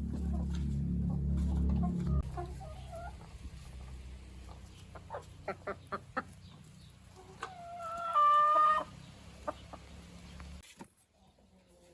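Domestic chickens clucking, with one loud, drawn-out call lasting about a second near the two-thirds mark. A low rumble fills the first two seconds, and the sound cuts off abruptly near the end.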